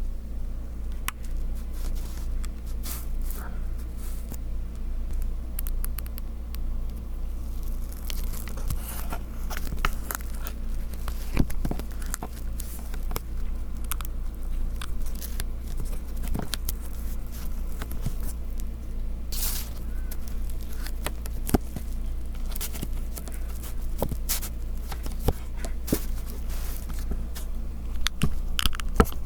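The plastic cap of a Copic Wide marker being handled close to the microphone: irregular clicks, taps and crackly plastic creaks, with a few short scraping strokes. A steady low hum runs underneath.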